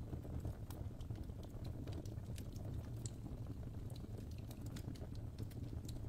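Wood fire crackling in a fireplace: irregular sharp snaps and pops over a steady low rumble of the burning fire.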